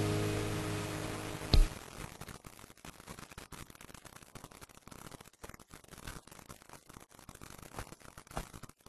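A piano chord dying away, then a single sharp knock about a second and a half in. After that only faint rustling and small clicks.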